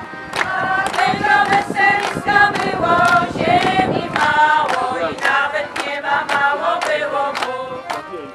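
Women's folk choir singing a song together to accordion accompaniment, with a sharp regular beat about twice a second. The singing eases off near the end.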